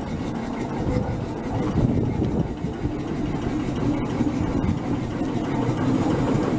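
Fowler B5 steam road locomotive on the move, a steady low rumble of its engine and running gear that grows a little louder as it draws near.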